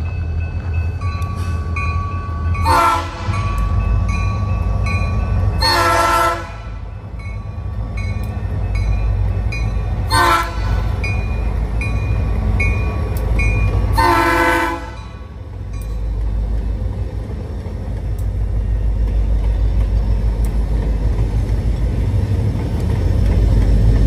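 A diesel locomotive horn sounds four separate blasts over the steady low rumble of a lashup of EMD diesel locomotives, and the engine rumble grows louder near the end.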